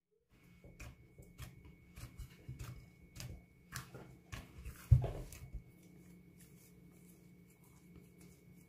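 Irregular taps and knocks of hands handling utensils and food on a kitchen worktop, with one louder thump about five seconds in, then only a faint steady hum.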